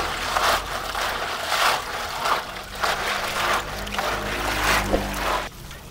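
Apple snails being scrubbed by hand in a plastic basin of water with a bunch of grass stalks: shells grinding and clattering together as the water sloshes, in rough strokes about twice a second that ease off near the end.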